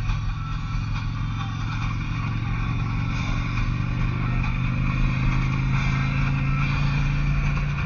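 2003 Harley-Davidson Electra Glide Classic's air-cooled, fuel-injected Twin Cam 88 V-twin running at road speed, with steady wind rush. The engine note swells and rises a little from about halfway through.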